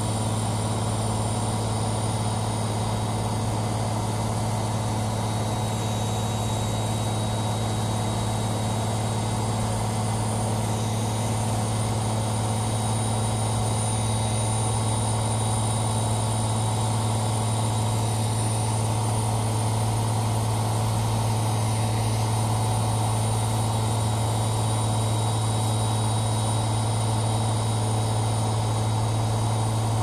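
A machine running with a steady low hum and a faint high whine, unchanging throughout.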